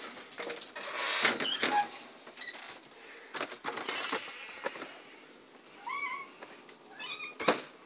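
A wooden cupboard door is opened and a box of cat treats is taken out and handled: clicks, knocks and rustling. A cat gives one short meow about six seconds in.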